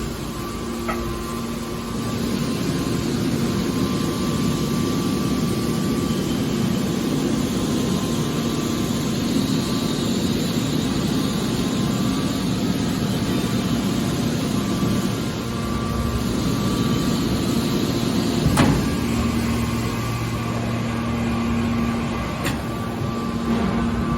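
Hydraulic car body baler running: a steady machine hum and drone from its power unit, with one sharp metallic knock about three quarters of the way through.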